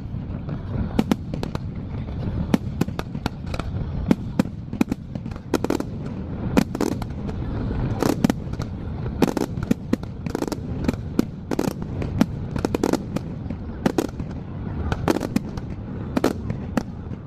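Aerial fireworks bursting: many sharp cracks and bangs, irregular and a few a second, over a continuous low rumble. It is played back at double speed.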